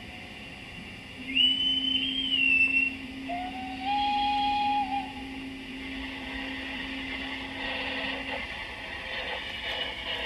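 Sound unit of an LGB garden-scale steam locomotive: two drawn-out whistle tones, a high one about a second in and a lower one a couple of seconds later, over a steady low hum. A faint hiss builds near the end.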